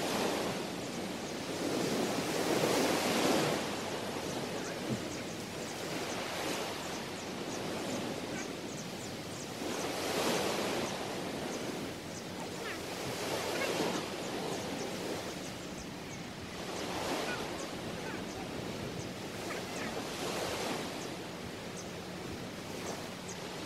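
Small waves breaking and washing up onto a sandy beach. The sound swells and fades every three to four seconds as each wave comes in.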